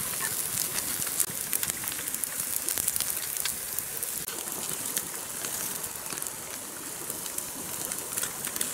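Open wood fire crackling, with fish and meat sizzling as they grill over the flames: a steady hiss dotted with many small pops and clicks.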